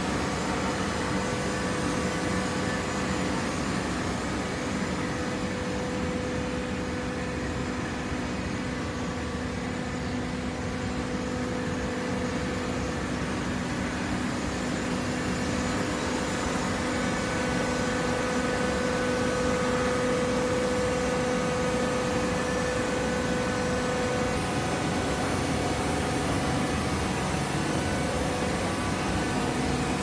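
Horizontal hydraulic baler running with a steady mechanical hum and drone, its motor-driven hydraulic power unit and conveyor at work.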